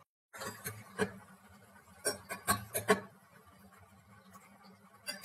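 Slotted metal spatula clinking and knocking against a stainless steel pot as potato pieces are stirred in hot frying oil, a few sharp knocks bunched about two to three seconds in, over a faint steady sizzle.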